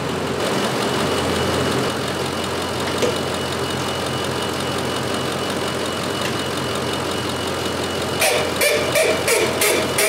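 2006 Ford F350 pickup engine idling steadily, heard up close under the open hood with the fan belt running. In the last two seconds a quick series of sharp clicks or taps rises above the idle.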